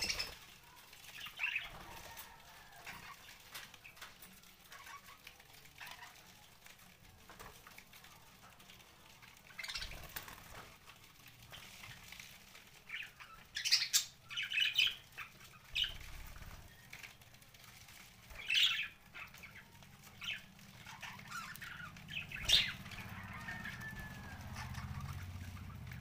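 Budgerigars flapping their wings and giving short, scattered chirps, in occasional bursts of activity.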